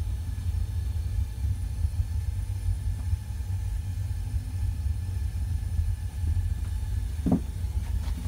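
A steady low rumble, with a brief faint sound about seven seconds in.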